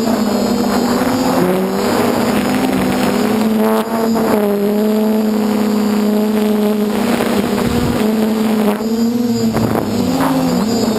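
DJI F450 quadcopter's four motors and 8-inch propellers running in flight, heard close from a camera mounted on its frame: a loud steady hum of several close tones that weave up and down as the motors change speed. The sound dips briefly just before four seconds in.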